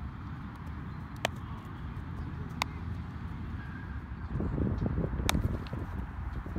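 Wind buffeting the microphone in low rumbling gusts, which grow louder about four seconds in. Three single sharp pops of a baseball smacking into a leather glove come through the wind.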